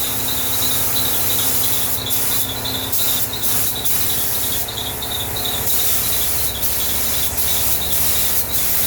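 Compressed-air spray gun hissing as primer is sprayed onto a car body, the hiss breaking off briefly several times as the trigger is let go, over a steady low hum.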